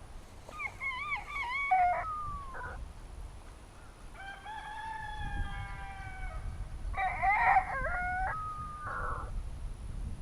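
Rooster crowing three times in a row, each crow wavering in pitch, with a long drawn-out middle call; a low rumble runs underneath.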